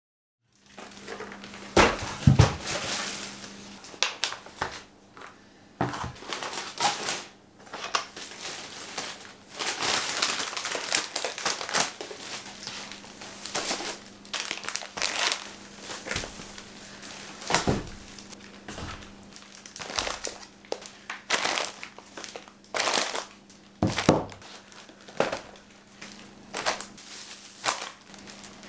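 Plastic bags and food packaging rustling and crinkling as groceries are unpacked by hand, with irregular knocks and thuds of packages being set down on a table. A faint steady low hum runs underneath.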